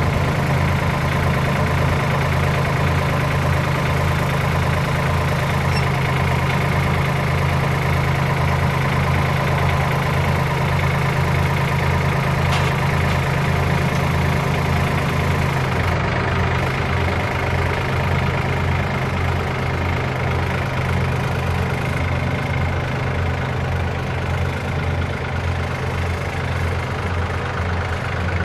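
Compact farm tractor's engine running at a steady idle. About halfway through, its note shifts slightly as the engine speed changes.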